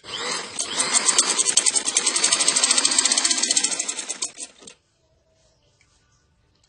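Sewing machine running and stitching a seam through fabric with a rapid, even stitch rhythm, stopping about three quarters of the way through.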